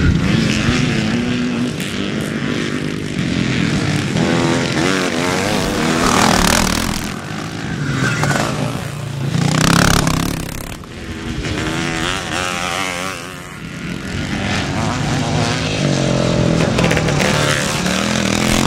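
Several classic motocross bikes racing, their engines revving up and down as they come and go, loudest as bikes pass close about six and ten seconds in.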